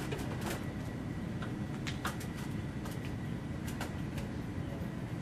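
Steady low rumble of building-site background noise with scattered light knocks and clicks as a ceiling tile and stepladder are handled, and a faint steady high tone.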